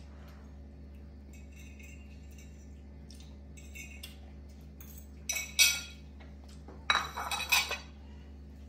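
Small stainless steel bowl clattering and clinking on a tiled countertop as a monkey's hands work at it, in two loud rattling bursts about five and seven seconds in, with a few lighter clinks before them. A steady low hum runs underneath.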